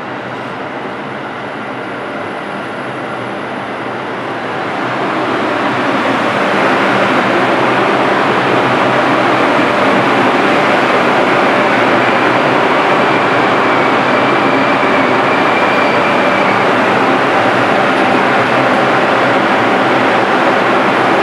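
Bombardier R142 subway train rolling slowly into the station, its wheels and running gear passing close by. The sound gets louder about five seconds in and then holds steady, with a faint high whine in the middle.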